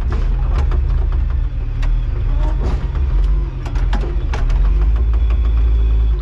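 Diesel engine of a digging machine running steadily while it digs, with irregular knocks and clanks over it.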